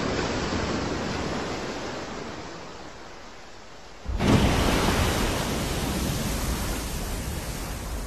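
Humpback whale breaching: water rushing off it as it rises, fading away, then about four seconds in a sudden loud splash as it crashes back into the sea, followed by steady rushing spray and surf.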